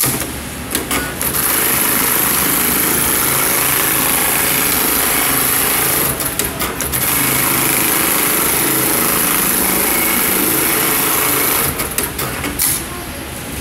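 Chaocheng computerized pattern sewing machine running fast, stitching around a shoe sole. The run breaks off for about a second around six seconds in, then starts again, and stops with a few clicks near the end.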